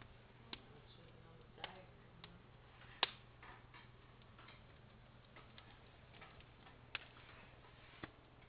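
Fire crackling quietly, with scattered sharp pops at irregular intervals, the loudest about three seconds in.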